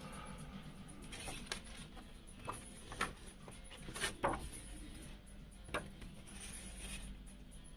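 A CD and its packaging being handled: a handful of sharp clicks and rustles, the loudest about three and four seconds in.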